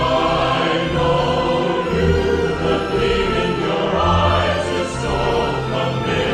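Orchestral music with a choir singing, sustained and full, with a strong bass.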